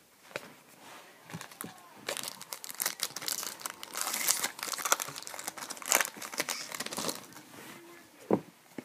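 Hockey card pack wrapper being torn open and crinkled by hand: a dense run of crackling crinkles from about two seconds in until near the end.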